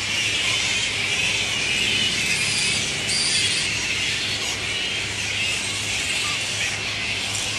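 Grey-headed flying fox colony at its daytime roost: many bats chattering and squealing at once in a continuous shrill squabble, with a few sharper squeaks about three seconds in.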